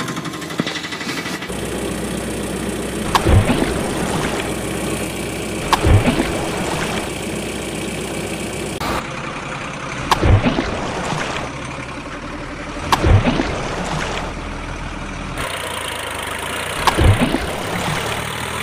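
Engine sound, running steadily with a louder surge every two to three seconds.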